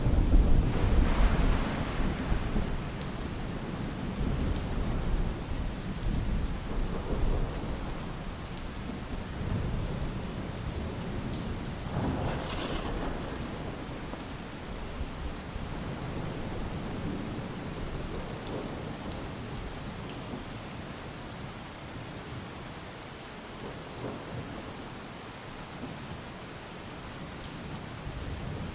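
Steady heavy rain falling, with a thunder roll loud at the start that fades over several seconds. A second, weaker rumble of thunder comes about twelve seconds in.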